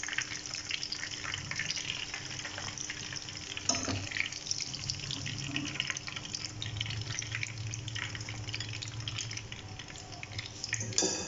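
Chicken pieces shallow-frying in hot oil in a frying pan, a steady sizzle with fine crackles, with a single knock about four seconds in.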